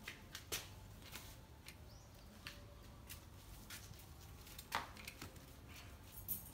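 Faint scattered taps and clicks of a baby macaque scrambling along a window ledge and climbing down the wall, the sharpest one about three quarters of the way through.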